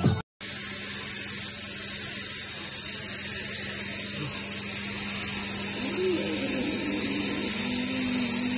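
Electric motor running steadily, a loud high-pitched whine over a low hum.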